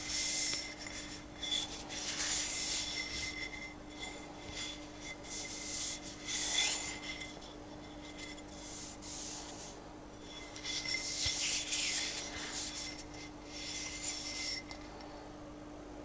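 Irregular bouts of rubbing and scraping, each lasting a second or two, as an 800-grit whetstone is handled.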